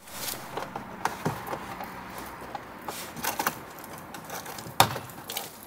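Irregular clicks and knocks of plastic car trim being handled: the wheel-arch liner and its clips being worked loose. The sharpest knocks come about a second in, around three seconds in and near five seconds.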